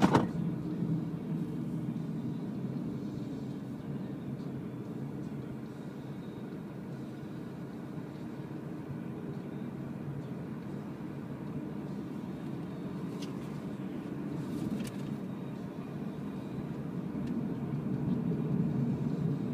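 Renault ZOE electric car driving, heard inside the cabin: steady tyre and road rumble, growing a little louder near the end, with a sharp knock right at the start.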